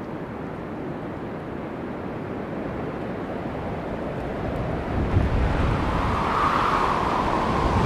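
Strong gusty wind buffeting the microphone, growing louder, with heavy gusts from about five seconds in. The engines of a Boeing 737 airliner on final approach come in over the wind near the end.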